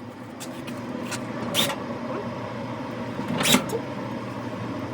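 A steady mechanical hum from a machine running, with a few knocks and clatters, the loudest about one and a half and three and a half seconds in.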